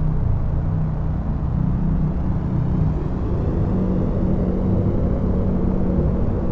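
Deep, steady rumbling drone with sustained humming tones that shift slightly in pitch: a synthesized sci-fi spaceship sound effect.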